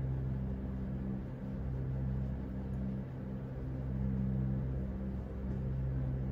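Low droning underscore of sustained deep tones that swell and ease every second or two.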